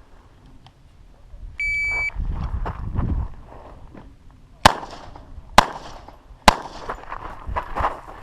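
Shot timer's start beep, a steady high tone lasting about half a second, followed a few seconds later by three pistol shots about a second apart.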